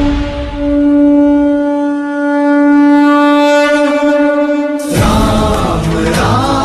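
Conch shell (shankh) blown in one long steady note of about four seconds, after a brief break just after the start. It cuts off about five seconds in, and devotional singing with music takes over.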